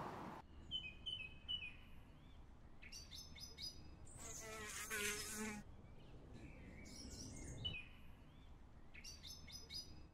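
Faint nature sounds: a bee buzzing for about a second near the middle, among short chirps and twitters of small birds.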